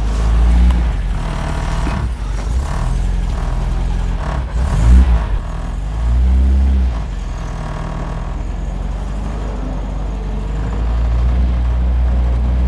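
The 1971 MGB Roadster's 1.8-litre four-cylinder engine running at low revs. Its revs rise briefly a few times in the first seven seconds, it settles to a steady run, then it builds again near the end.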